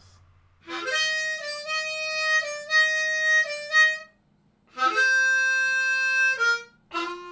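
Short instrumental jingle of sustained notes in two phrases, with a brief pause about four seconds in, then a few short notes near the end.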